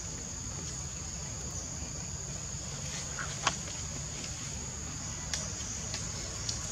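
Steady high-pitched drone of insects, with one sharp click about halfway through and a few fainter clicks later.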